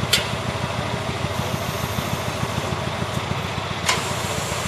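A timber truck's engine running steadily, powering its hydraulic log crane, with two sharp knocks, one just after the start and one near the end.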